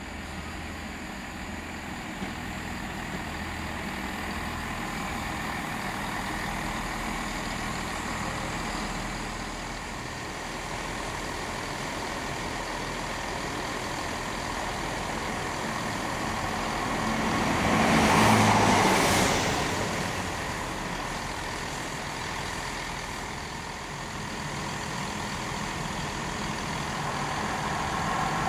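Chiltern Railways diesel multiple unit running at the platform with a steady engine rumble. About two-thirds of the way in comes a loud hissing burst lasting about two seconds. Near the end the sound grows louder as a second train approaches.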